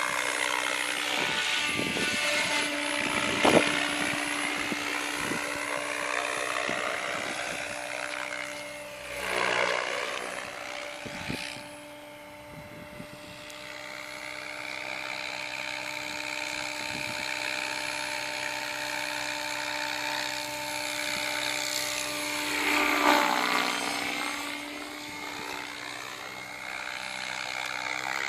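Goblin electric RC helicopter flying: the steady whine and buzz of its motor and rotor blades. Twice the pitch dips and comes back up as the sound swells, about a third of the way in and again near the end.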